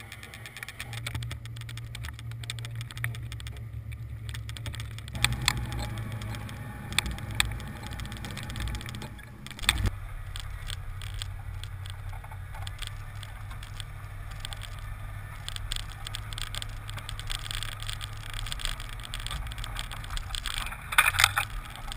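1992 Ford F-150 Flareside's V8 engine running low and steady as the 4x4 truck crawls over rough trail, heard from outside the cab, with many small clicks and rattles over it. The sound changes abruptly about ten seconds in.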